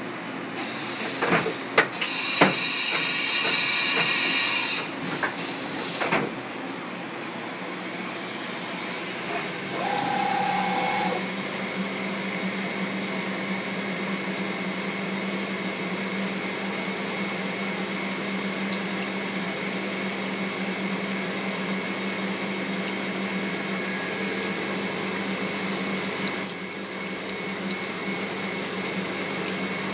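Hurco BMC 20 CNC vertical machining center milling metal: the spindle runs and the cutter chews through the workpiece over a steady hiss of coolant. The first several seconds are louder, with a high ringing whine and a few sharp clicks. After that the cut settles into a steady low hum.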